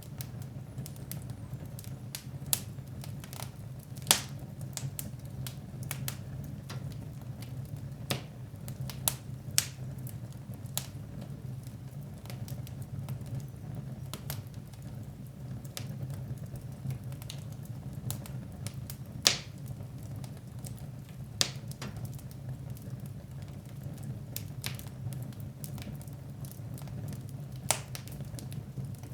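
Fire burning in a fireplace, crackling with irregular sharp pops, a few of them much louder than the rest, over a steady low rumble.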